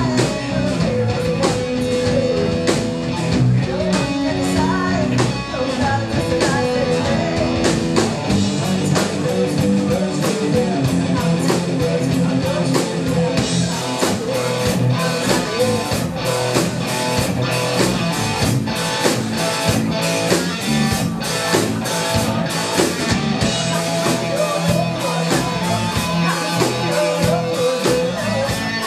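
Live hard-rock band playing: electric guitars through Marshall amplifiers, a Sonor drum kit and a woman singing lead into a handheld microphone. The drumming gets busier in the cymbals about halfway through.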